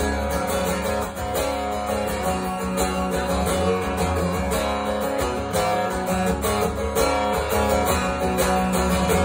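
Solo acoustic guitar strummed steadily in a regular rhythm: an instrumental break between sung verses, with no voice.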